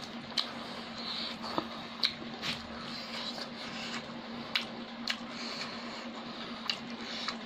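Eating by hand: wet chewing and lip-smacking, with fingers mixing rice on an aluminium plate and sharp clicks now and then, over a steady low hum.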